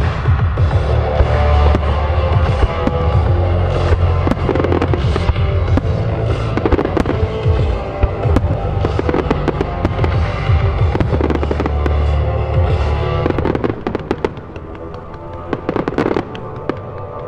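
Fireworks going off in rapid succession, many sharp bangs and crackles over the show's music. The barrage thins out about fourteen seconds in, leaving a few last bangs near the end.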